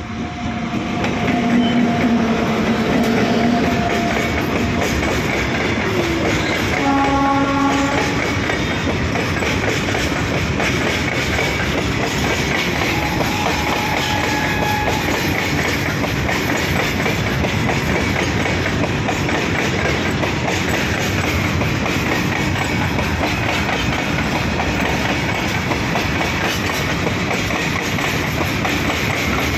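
Electric freight locomotive passing close, then a long line of hopper wagons rolling by with the steady rumble and clatter of wheels over the rail joints. A horn sounds once for about a second, some seven seconds in.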